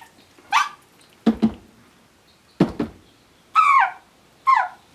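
Barn owl hatchlings giving three short, squeaky begging calls, each falling in pitch, while being fed. A few sharp knocks fall between the calls.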